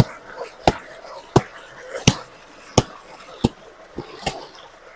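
A wooden laundry stick beating a wet blanket, seven slaps in a steady rhythm about 0.7 seconds apart.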